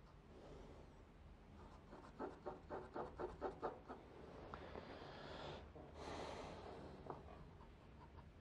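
Graphite pencil hatching on drawing paper: a run of about eight quick back-and-forth strokes, roughly four a second, then a couple of longer scratchy strokes.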